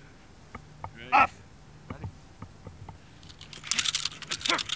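A dog barks once, loud and short, about a second in, with another bark near the end and scattered rustling and clicks in between.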